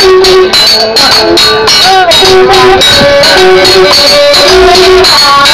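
Seú music: chapi hoe blades struck with metal, clinking in a steady rhythm, while a kachu cow horn blows a held low note again and again, with voices over it.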